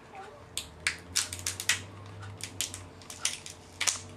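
Cooked lobster tail shell cracking and snapping as hands break it open: a quick, irregular series of sharp cracks.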